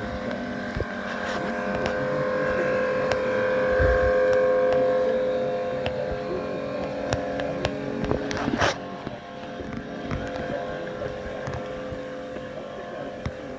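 A steady motor drone that swells about four seconds in, with scattered sharp clicks over it.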